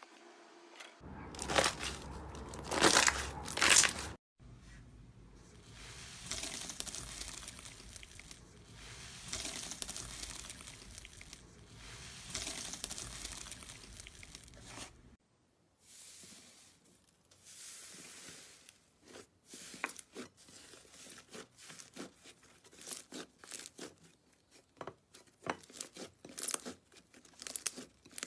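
Slime being squished and worked by hand, a crackly, sticky noise that is loudest in a few bursts near the start. In the second half it turns into many quick separate clicks and pops.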